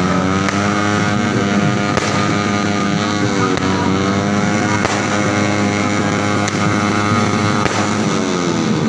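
A continuous engine-like drone whose pitch slowly dips and rises, with a few scattered fireworks bangs among it.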